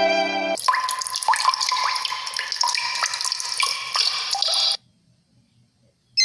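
Water dripping sound effect: a rapid run of drops for about four seconds, each a short plink with a quick upward sweep in pitch.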